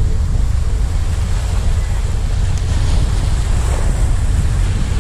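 Wind buffeting the microphone in a steady low rumble, over small waves washing against shore rocks.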